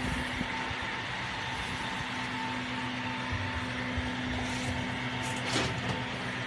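Steady whir of storage-array and server-room cooling fans, with a constant electrical hum, plus one short click-like noise about five and a half seconds in.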